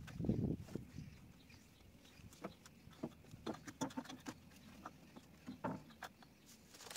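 Scattered clicks and light knocks of metal parts and tools being handled during front brake caliper removal, with a brief low rustle at the start.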